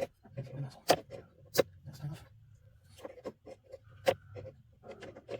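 A few sharp clicks and knocks, three inside a few seconds, with faint low rustling between them: handling noise from hands working on hardware.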